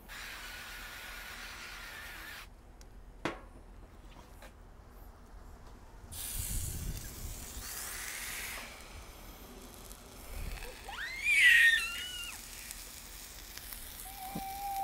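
Avocado oil hisses from a spray bottle onto the hot Blackstone griddle. From about six seconds in, a ball of ground beef sizzles on the hot steel as it is smashed flat with a burger press. A short, loud squeal that slides in pitch comes about three quarters of the way through.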